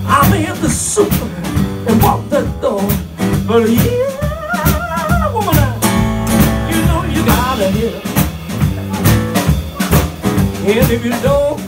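Live acoustic band music: acoustic guitar, double bass and drum kit playing a steady beat, with a man singing phrases near the start and again near the end.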